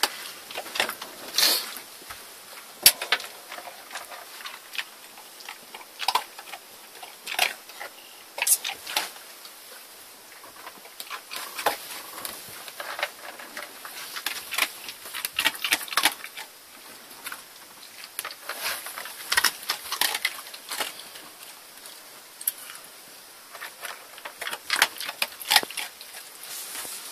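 Jack Russell terrier eating dry kibble from a bowl: irregular crunches and clicks of kibble against the bowl.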